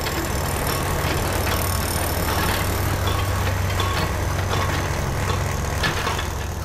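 Sound effects for an animated intro: a steady low rumbling drone under a noisy wash, with scattered short clinks. The drone fades near the end.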